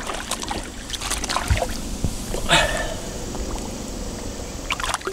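Shallow river water sloshing and trickling around a common carp being held in the current for release, with a few small splashes and knocks.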